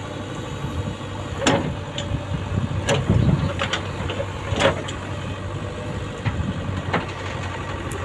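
JCB 3DX backhoe loader's diesel engine running steadily while the backhoe digs, with about five sharp metal clanks from the bucket and arm.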